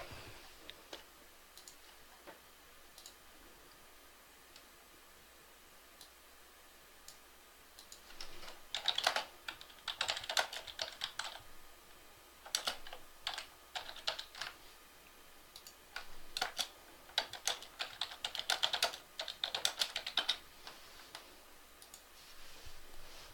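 Computer keyboard typing in quick bursts of keystrokes, starting about a third of the way in after a quiet stretch.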